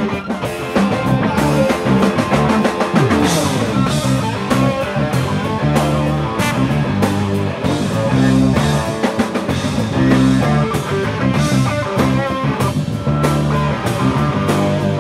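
Live funk band playing: electric guitar, bass, drum kit and congas in a steady groove, with trombone.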